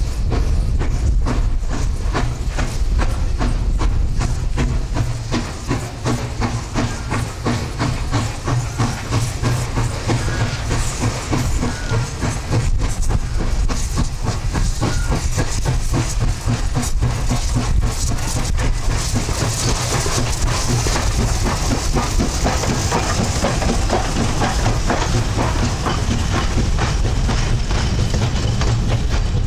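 Steam locomotive working a passenger train past at close range: rhythmic exhaust beats over a heavy rumble. About two-thirds of the way through, a loud hiss of steam rises as the coaches roll by with wheels clicking over the rail joints.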